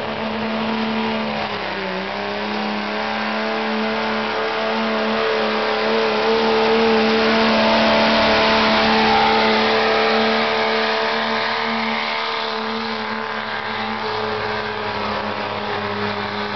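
Diesel pickup truck engine held at high revs under heavy load while pulling a weight sled: a steady drone whose pitch dips briefly about two seconds in, loudest as the truck passes about eight seconds in, then easing off.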